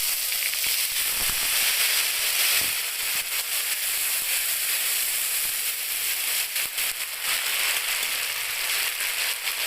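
Onion sizzling and crackling in hot oil in a pan: a steady high hiss with scattered sharp pops.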